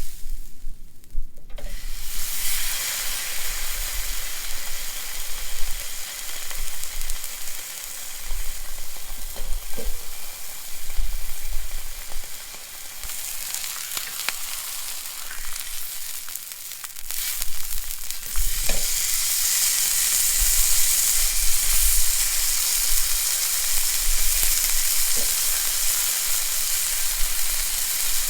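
Food sizzling as it fries in a hot pan. The sizzle starts about two seconds in, dips for a few seconds midway, then comes back stronger, with a few faint clicks.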